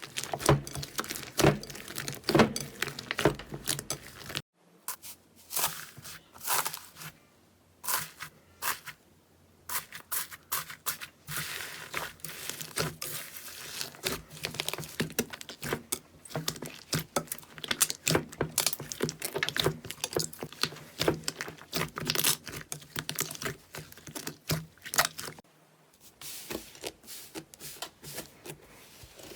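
Slime being squeezed and worked by hand, giving dense, irregular crackling and popping clicks. The sound breaks off briefly about four and a half seconds in and again near the end.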